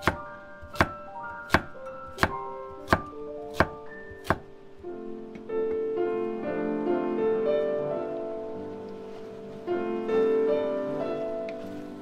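A cleaver chopping carrots on a wooden cutting board: seven sharp chops about 0.7 s apart, stopping after about four and a half seconds. Slow piano music plays throughout and grows fuller once the chopping stops.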